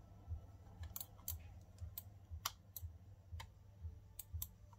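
Sharp plastic clicks and taps from an Anker vertical ergonomic wireless mouse being turned over in the hands, about eight scattered clicks. A faint low pulse about twice a second runs underneath.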